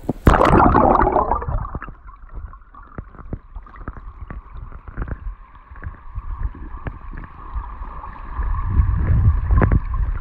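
A splash as the camera goes under the creek's surface, then the stream heard underwater: muffled gurgling with scattered knocks and a low rumble that swells near the end.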